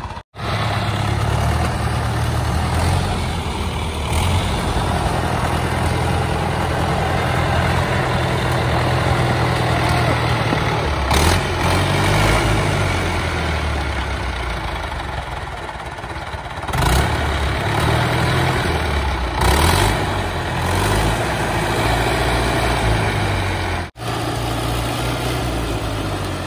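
David Brown 995 tractor's three-cylinder diesel engine running, its speed rising and falling several times.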